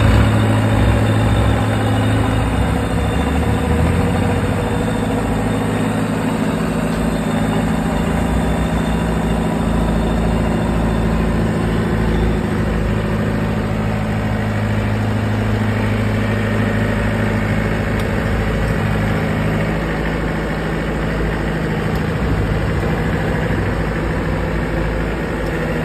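Diesel engine of a Yanmar 820 rice combine harvester running steadily, its lowest tone dropping away about four seconds in.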